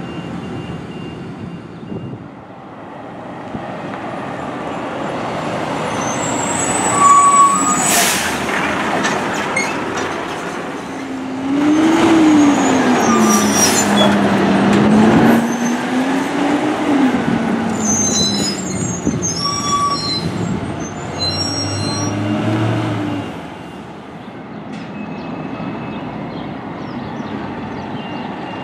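Diesel garbage trucks driving slowly past, engines running with a rumble that swells as one passes close. Its engine note rises and falls as it goes by. Brakes squeal several times, and there are short air-brake hisses.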